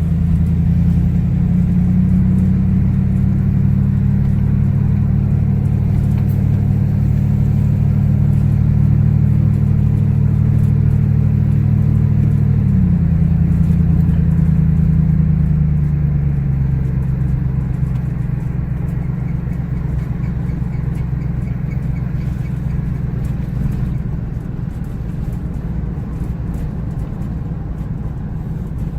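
Car engine running at a steady pitch with road noise, heard while driving. About 13 seconds in the engine note drops in pitch, and over the next few seconds it fades and the sound gets quieter.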